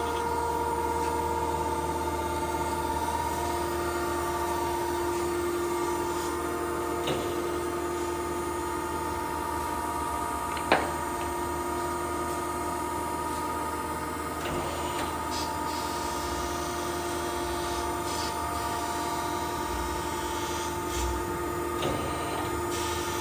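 1992 Okamoto ACC-2040DX2 hydraulic surface grinder running in fully automatic mode, its spindle and hydraulics humming steadily with several steady tones while it grinds steel vise jaws. A few short clicks sound, the sharpest about ten seconds in.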